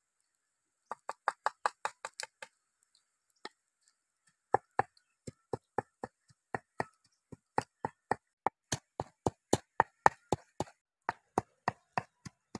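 Pestle pounding in a clay mortar: a quick run of sharp knocks about a second in, a short pause, then steady pounding at about four strokes a second.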